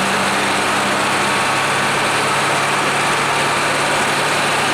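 Hino AK-3 bus engine running steadily, heard from inside the bus, its pitch dropping about a second and a half in.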